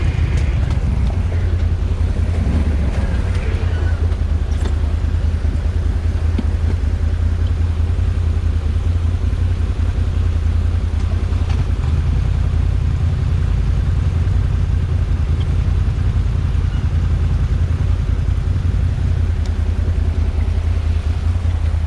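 Can-Am Outlander 1000 XMR ATV's V-twin engine running steadily at an even speed, a constant low drone with no revving.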